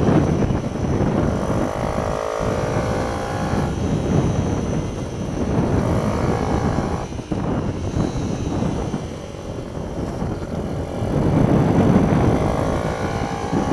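Mini-bike engine being ridden hard, its pitch climbing as it revs up and dropping back several times through the lap, under heavy wind rumble on the on-board microphone.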